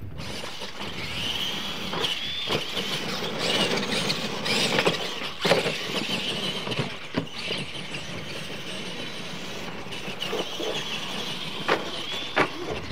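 RC monster trucks racing on dirt: a high electric-motor and gear whine that rises and falls with the throttle. Sharp knocks come as the trucks hit and land off the ramps, two of them close together near the end.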